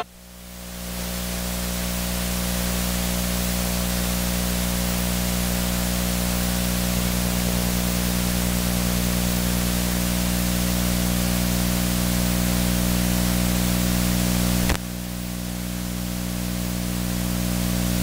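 Steady electrical mains hum with a layer of hiss, the buzz of an idle sound system. A single click about 15 seconds in, after which the level drops and slowly builds again.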